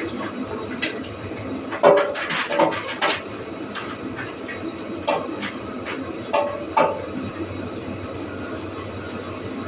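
Belt-driven sawmill and planer machinery running steadily, with a cluster of sharp knocks and clatters about two to three seconds in and a few more around five to seven seconds.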